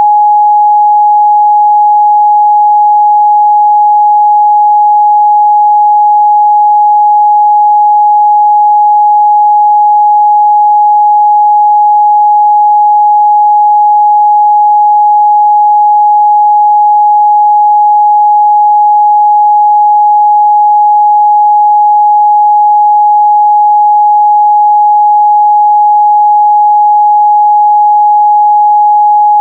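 A steady, loud 836 Hz pure sine test tone, one unbroken pitch at constant level, used for checking speaker and headphone midrange response.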